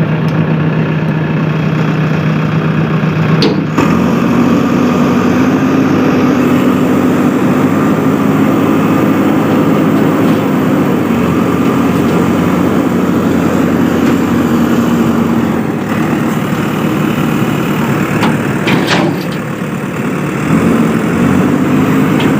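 Heavy diesel engine running, then revving up about four seconds in and held at higher speed, easing back for a while and picking up again near the end. A sharp click comes just before the rev-up, and a few knocks later on.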